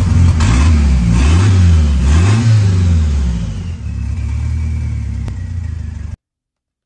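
Ford 2.3-litre turbocharged Lima four-cylinder engine running, revved three times and then settling to a steady idle. The sound cuts off suddenly near the end.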